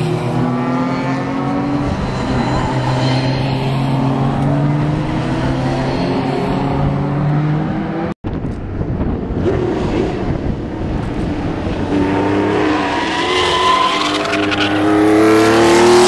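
Historic racing car engines running at speed on a circuit, their pitch rising and falling as they pass. The sound breaks off for a moment about halfway through. In the second half the engines climb steadily in pitch and get louder as cars accelerate toward the microphone.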